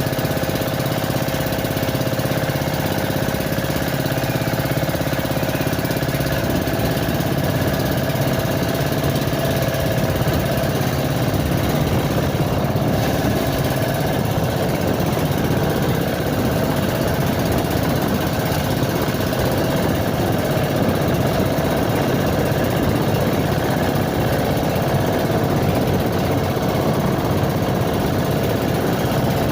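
Small boat engine running steadily at a constant speed.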